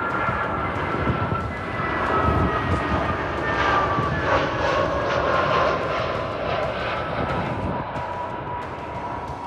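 Airliner passing overhead, its engine whine sliding slowly down in pitch as it goes by. The noise swells to its loudest a couple of seconds in and eases off near the end.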